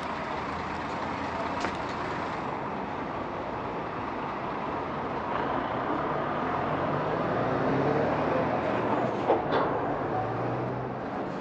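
Street traffic: a steady hum of passing vehicles, with one vehicle's engine growing louder to a peak about eight seconds in. There is a short sharp knock a little after nine seconds.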